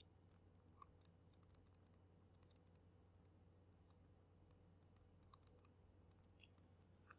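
Faint, scattered clicks and taps of a stylus on a tablet screen during handwriting, in clusters a few times, over near silence.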